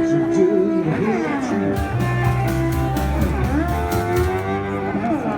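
Live street music: a plucked string instrument plays, with a melody line that slides up and down in pitch over it.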